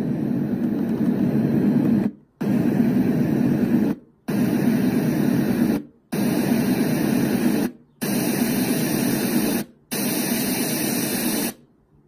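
Douni white noise machine's speaker playing white noise, switched to a different noise sound about every two seconds with a short silence at each change; the later sounds are brighter and more hissy. The noise stops shortly before the end.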